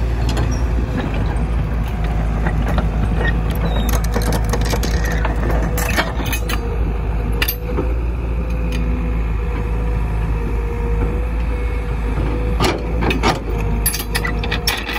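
Caterpillar tracked excavator's diesel engine running steadily while the machine digs, with sharp metallic clanks from the bucket and arm linkage several times, a cluster of them near the end.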